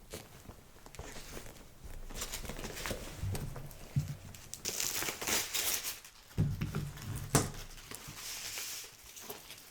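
Packing material crinkling and rustling as it is handled, in irregular stretches, with a few soft thumps from the handling.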